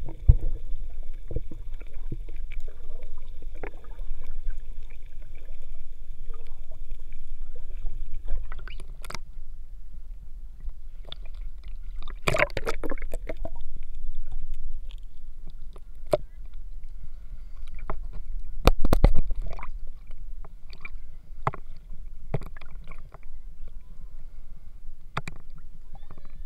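Muffled water noise heard through a submerged action camera's housing: a steady low rumble with scattered sharp clicks and knocks of water against the case. Faint steady high tones fade out about eight seconds in, and the clicks come in thicker clusters twice, near the middle and about two thirds through.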